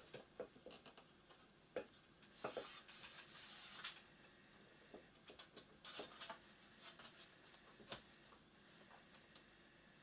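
Faint scattered clicks and taps of hands working at the plastic and metal casing of an opened Asus ZenBook UX302 laptop, with a scraping rub lasting about a second and a half, starting about two and a half seconds in.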